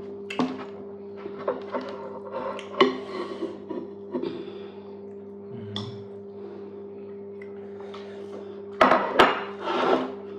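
Dishes and utensils clinking and knocking during a meal: scattered light knocks, with a louder cluster of clatter near the end. A steady low hum runs underneath.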